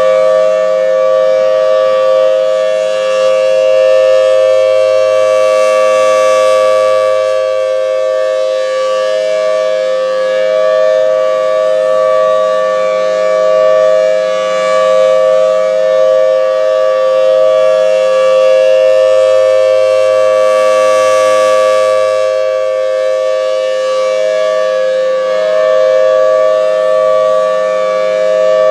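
Federal Signal Thunderbolt 1003 outdoor warning siren sounding a steady tone at full speed, two close notes heard together. The sound swells and fades as the rotating head sweeps toward and away, loudest about every fifteen seconds.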